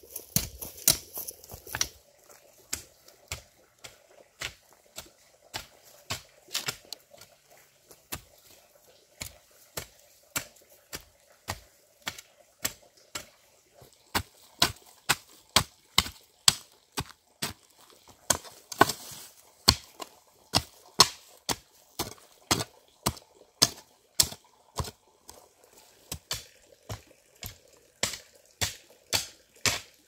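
A steady series of sharp strikes, about two a second, like a hand tool chopping repeatedly.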